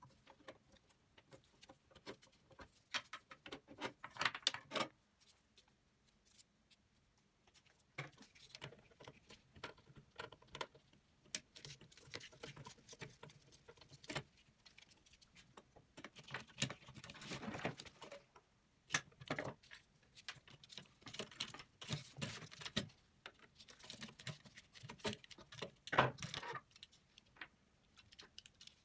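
Irregular small metal clicks, scrapes and rattles as the sheet-metal parts of an electric barbecue are taken apart by hand and with a screwdriver: the heating element lifted out, screws worked at the gear plate, and the gear plate with its motor pulled free.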